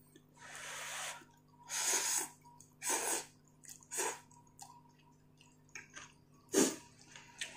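A person slurping ramen noodles, in about four short noisy pulls over the first few seconds with quiet chewing between. A sharper intake of breath or slurp comes near the end.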